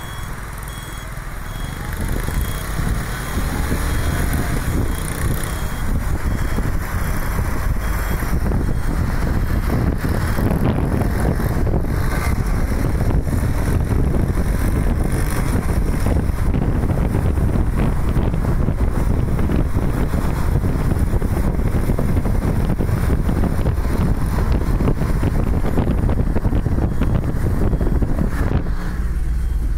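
A car driving on a road, heard from inside the cabin: a steady rumble of engine and tyre noise with some wind, growing a little louder about two seconds in.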